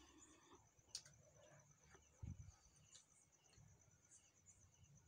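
Near silence: faint room tone, with one sharp click about a second in and a soft low thump a little after two seconds.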